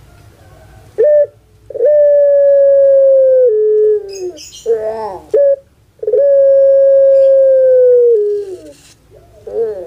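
Puter pelung doves (a Javanese breed of Barbary dove) cooing. There are two long coos, each held steady for about two seconds and then dropping in pitch at the end, with short warbling notes before and between them.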